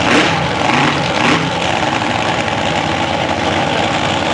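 Top alcohol dragster engine running loudly at idle, with two brief surges, one right at the start and one about a second and a quarter in.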